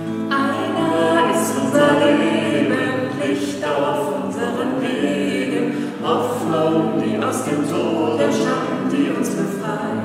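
A small group of mixed voices singing a hymn together to acoustic guitar accompaniment, with short breaks between phrases.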